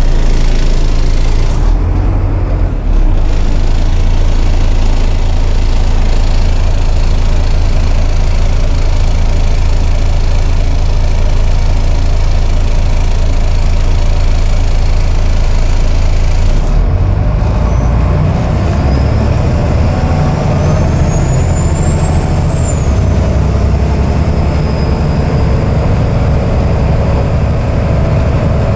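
Volvo D7C diesel engine of a Volvo B7TL double-decker bus running under way, heard from inside the passenger saloon as a steady low drone. The engine note changes about two-thirds of the way through, and a faint high whine rises and falls soon after.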